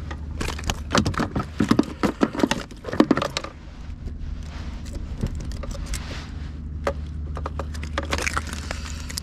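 Clicking and rattling of a freshly caught fish being handled and unhooked on a kayak: hooks, lure and a metal lip grip knocking together. The handling is thickest about a second in and thins to scattered clicks, over a steady low hum.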